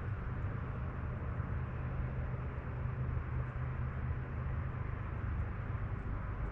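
Steady rushing of the Middle Fork of the Flathead River: an even wash of flowing water with a low rumble underneath.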